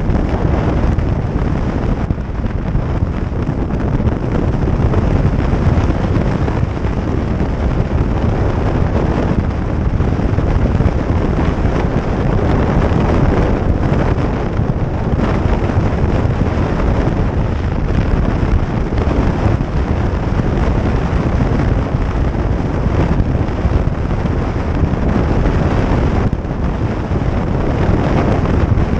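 Steady, heavy wind noise on the microphone of a motorcycle moving at road speed, with the motorcycle and road noise underneath.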